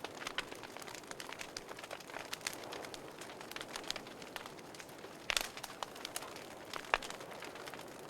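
Wood fire burning in a fireplace: a steady low hiss under frequent small crackles, with a few louder pops past the middle.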